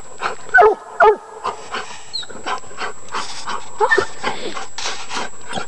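Black-and-tan coonhound barking treed: two short falling barks half a second apart near the start and another about four seconds in, with fast rhythmic panting, about four breaths a second, between them.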